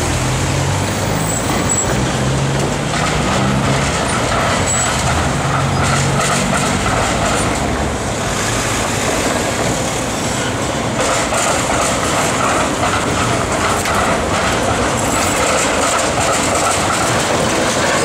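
Electric trams rolling along street rails among car traffic: a steady rumble of wheels and motors on the track, with a whine that comes in about three seconds in and again about eleven seconds in.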